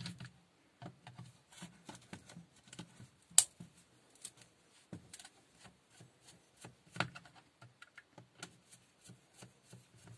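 Light scattered clicks and taps of a hand screwdriver and its bit being handled and fitted, with one sharp click about three and a half seconds in and a smaller one near seven seconds.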